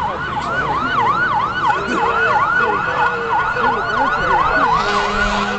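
Emergency vehicle sirens on yelp, sweeping quickly up and down about four times a second, with more than one siren overlapping. A low steady tone joins near the end.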